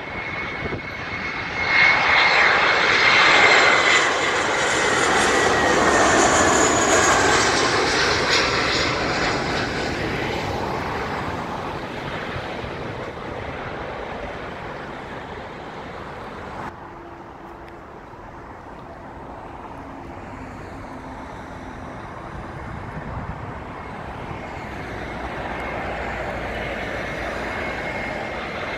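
Jet airliner engines passing low overhead on final approach: the noise swells a couple of seconds in, with a whine that falls in pitch as the aircraft goes by, then fades. Toward the end the next arriving jet's engines grow louder as it approaches.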